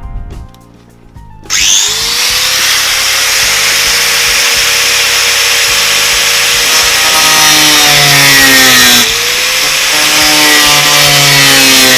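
Angle grinder starts up with a rising whine about a second and a half in, then cuts into the steel side panel of a van with a loud, steady grinding. Its pitch sinks twice as it is pressed into the cut, with a short let-up in between.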